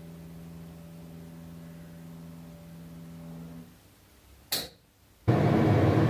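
A low steady hum that stops about three and a half seconds in, then a single click. Near the end comes the loud, even rush of air from a Zanussi ZPAC9002 portable heat pump air conditioner running on full fan speed with its compressor on, heating.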